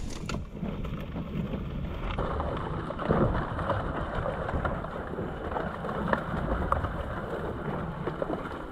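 Honda CRF dirt bike's single-cylinder engine running at low revs as it rolls downhill, under wind noise on the microphone, with grass and brush rustling against the bike.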